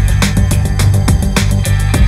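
Background music with a steady beat: drum hits about four times a second over a sustained bass line.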